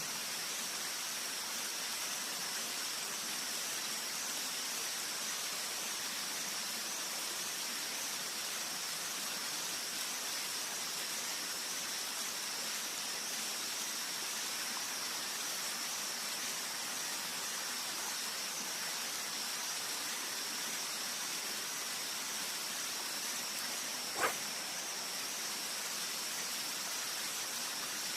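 Steady outdoor hiss of a riverside, with a thin, slightly wavering high whine held throughout. A single sharp click sounds a few seconds before the end.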